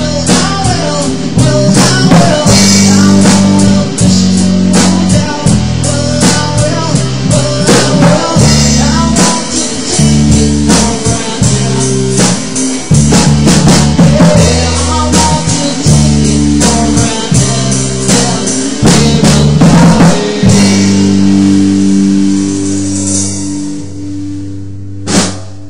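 Live rock band of electric guitar, electric bass and a Yamaha drum kit playing hard. About twenty seconds in they hold a final chord that slowly fades, with one last drum hit near the end.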